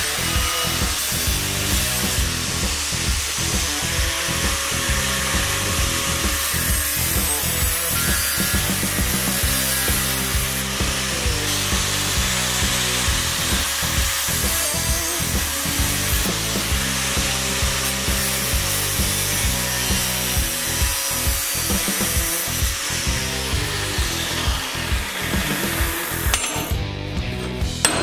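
Angle grinder with a thin cut-off disc cutting through steel square tubing: a steady, high grinding that stops about a second and a half before the end.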